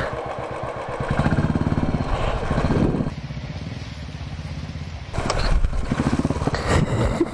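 Royal Enfield Bullet's single-cylinder four-stroke engine running while the motorcycle is ridden through deep mud. The engine pulses are strong for the first three seconds, drop back for a couple of seconds, and pick up again about five seconds in.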